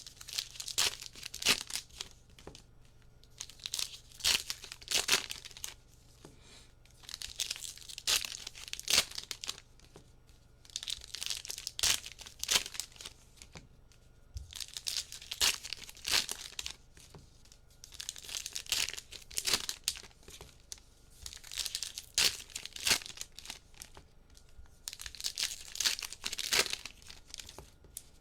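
Trading card pack wrappers being torn open and crinkled by hand, in repeated bursts of crackling every two to three seconds as one pack after another is opened.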